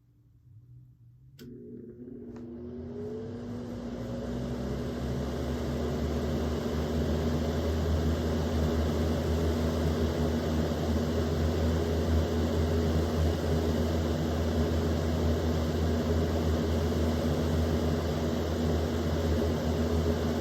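Easy Home electric box fan switched on at high speed: a click of the switch, then the motor hums up to speed with a rising whine and a growing rush of air over a few seconds, settling into a steady run.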